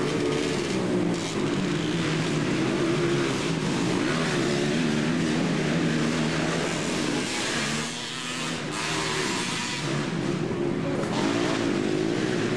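A row of three-wheeler ATC motocross engines running together at the start gate, idling and being blipped. The pitches waver up and down as the riders rev ahead of the start.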